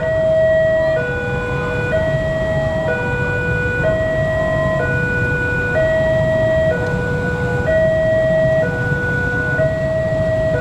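Railway level-crossing warning alarm: an electronic two-tone signal, alternating between a higher and a lower tone about once a second, warning of an approaching train. A steady low rumble runs beneath it.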